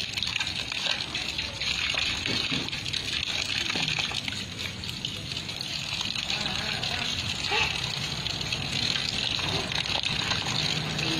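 Water from a garden hose spraying and splashing onto wet concrete and into a shallow puddle: a steady hiss.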